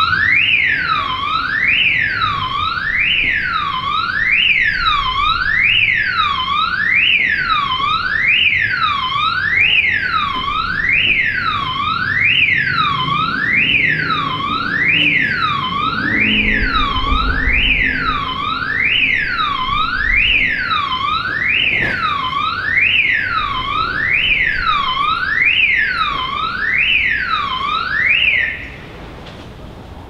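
Electronic alarm siren sounding loudly, its pitch swooping down and up about once a second in an unchanging cycle. It starts abruptly and cuts off suddenly near the end. Low traffic rumble runs underneath, swelling about halfway through as a vehicle passes.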